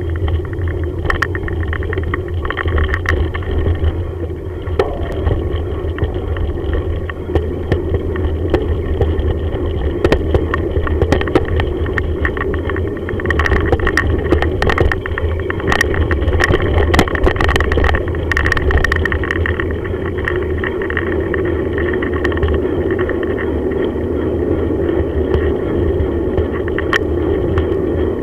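A bicycle rolling along a rough, puddled lane, heard through a camera mounted on the bike: a steady rumble of tyres and travel noise with frequent clicks and rattles from the bike.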